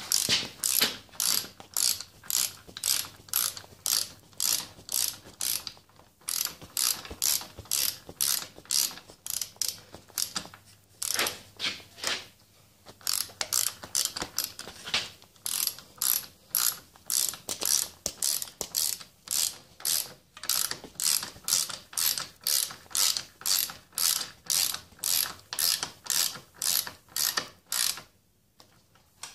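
Hand ratchet wrench clicking on its back-swings, about two strokes a second with a few short pauses, as the throttle lock's clamp bolt is run down tight. The clicking stops near the end.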